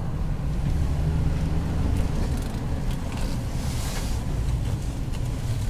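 Car engine running and tyres rolling while driving, heard from inside the cabin as a steady low hum, with a brief rushing hiss about four seconds in.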